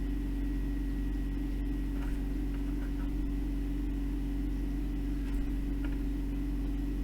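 Steady electrical hum and drone with a faint high-pitched whine over it, and a few faint ticks.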